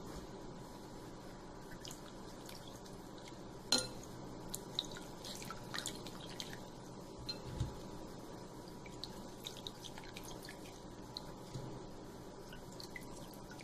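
Water dripping and small splashes, faint, as soaked moong dal vadas are lifted by hand from a glass bowl of water and squeezed lightly to press the water out, with one sharper click about four seconds in.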